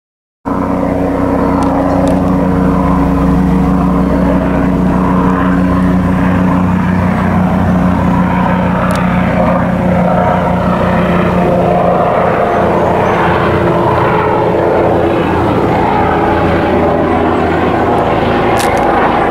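Police helicopter flying overhead: continuous loud engine and rotor noise over a steady low hum, the hum fading in the second half.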